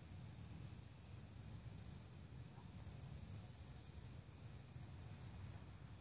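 Faint insects chirping: a regular high-pitched chirp about three times a second over a steady high trill, with a low rumble underneath.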